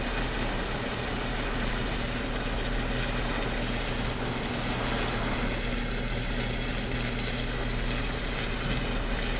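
Downed live power line arcing: a steady hiss with a low electrical hum, heard from inside a car.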